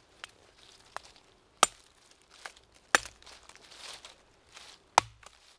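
Three sharp, loud cracks of dry wood, about a second and a half apart, with dry leaves rustling and small twig clicks between them.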